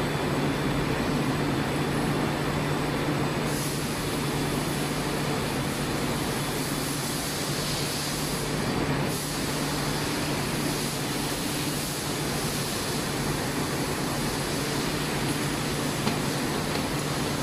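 Steady factory machinery noise: a constant low hum under a broad hiss, the hiss growing brighter a few seconds in.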